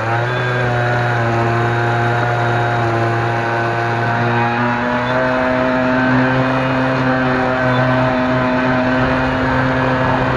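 An RC model boat's motor running steadily under way, picked up by the camera on the boat itself, with its pitch stepping up slightly right at the start.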